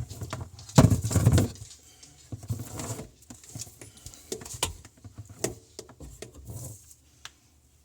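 Handling noises under a kitchen sink: irregular clicks, knocks and rustles, with a louder scraping knock about a second in.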